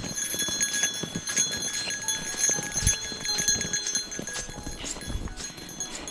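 Footsteps crunching on packed snow as a hiker walks steadily, a string of irregular crisp steps.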